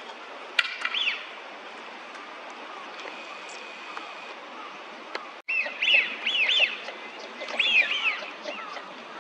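Bird calls: a short group of quick rising-and-falling chirps about half a second in, then, after a sudden brief dropout, two more runs of similar chirps, over a steady hiss.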